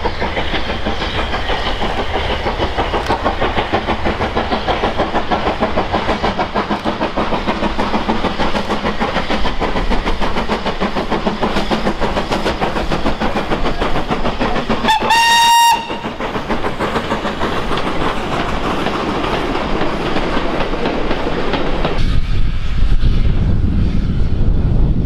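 Steam locomotive working a goods train past at low speed, its exhaust beating steadily while the wagons clatter over the rail joints. About halfway through it gives one short whistle blast. Near the end a lower, steady rumble takes over.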